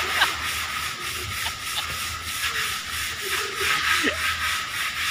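Sandpaper rubbed by hand back and forth over a wall: a continuous, scratchy rasp with a faint regular pulse of strokes.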